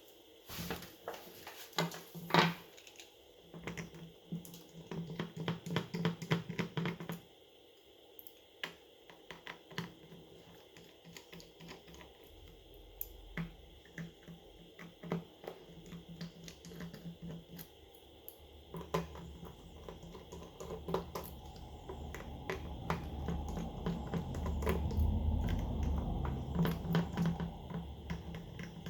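Small hand tools clicking and tapping on a smartphone's parts during disassembly, in many irregular light clicks. A low rumble builds up in the last third.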